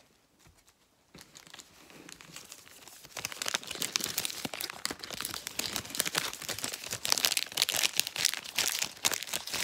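Plastic wrapper of a football trading-card pack crinkling and being torn open. The crackle starts about a second in, then grows louder and denser.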